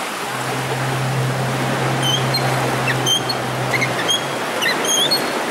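Small tour boat's engine running with a low steady hum over the wash of sea water; the hum stops about four seconds in, and a few short high chirps come in the second half.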